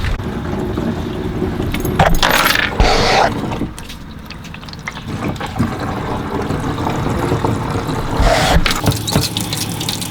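Metallic clinking and rattling, as of small metal parts and tools being handled, with a short loud hissing rush about two seconds in and another near the end.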